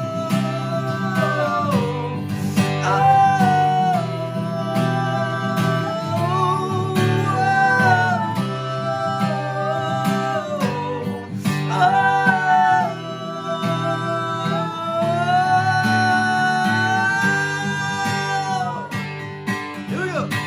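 Acoustic guitar strummed steadily, with a voice singing a wordless melody of long, held notes over it, in phrases.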